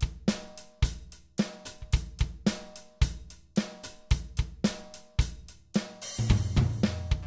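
Music: a steady drum-kit beat of kick, snare and hi-hat, with main hits just under two a second. About six seconds in, a cymbal wash and a held low bass note come in.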